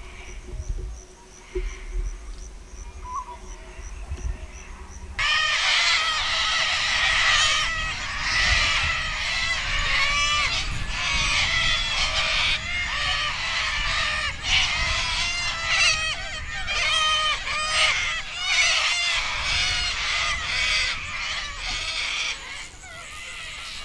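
A flock of cockatoos screeching: many harsh, overlapping calls that break in suddenly about five seconds in and carry on almost to the end, over a low rumble.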